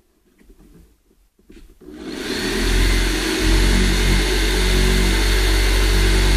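Black & Decker electric jigsaw starting about two seconds in, then running steadily as its blade cuts.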